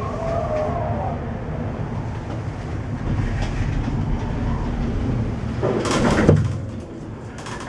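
Aerial cable car gondola running along its haul rope, a steady rumble inside the cabin. About six seconds in there is a loud rattling clatter as the cabin's grip carriage rolls over the sheaves of a support tower. The rumble is quieter after that.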